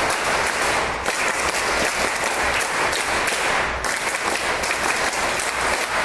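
A large audience clapping together in steady, dense applause.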